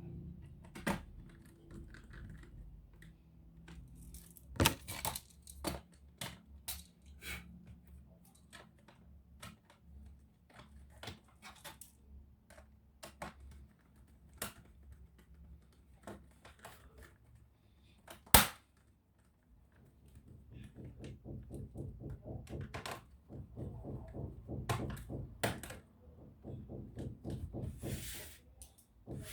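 Irregular small clicks and taps of laptop parts and tools being handled during repair, with one sharp click about two-thirds of the way in and a quick, dense run of rattling clicks near the end.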